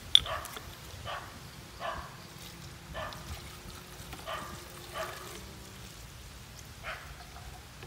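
A dog gives short yelps about once a second. Under them, coconut water trickles from a plastic measuring jug into a bottle.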